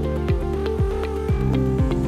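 Upbeat electronic background music with a steady kick drum about twice a second under held synth notes.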